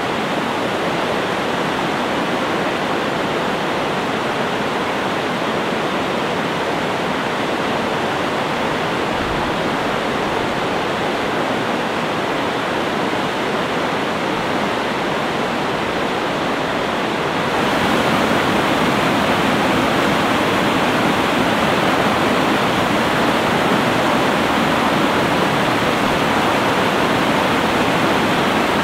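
Fast whitewater rushing over and through a river log jam, a steady, loud wash of water with the current ripping. It grows louder and brighter about two-thirds of the way in.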